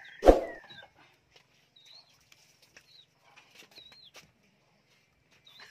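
A single loud knock a moment in, then light clicks of a spoon working in a glass and a bowl, with a few short, high chirps from a small bird.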